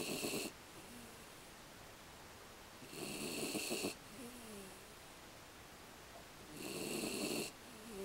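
A sleeping beagle snoring: a raspy, hissing snore roughly every three and a half seconds, each about a second long, with a faint short whine after one of them.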